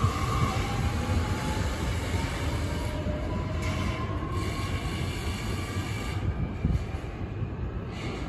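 Hankyu 8300 series electric train accelerating away, with car 8330's test Toyo Denki hybrid SiC VVVF inverter and traction motors whining slowly upward in pitch over rolling wheel-and-rail rumble. The sound fades a little as the train pulls off.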